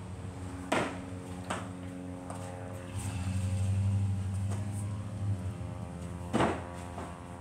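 Feet thudding on landings during burpee box jump-overs onto a wooden plyo box and rubber floor mats: two thuds in the first second and a half, two more near the end. A steady low hum runs underneath, and a low rumble swells and fades in the middle.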